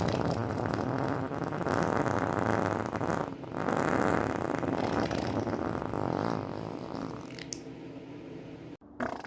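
A long, drawn-out fart with a short break about three seconds in. It trails off over its last couple of seconds and stops abruptly near the end.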